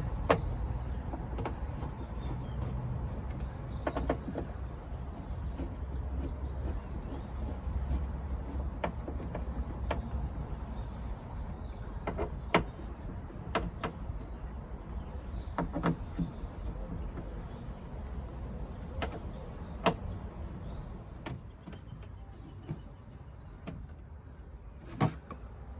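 Scattered sharp clicks and light knocks of hand work on a car door's lock and inner panel, over a steady low rumble, with a few short high chirps.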